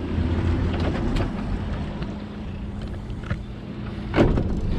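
Small fishing boat's engine running steadily underway, a low drone with water and wind noise over it. A short knock near the end.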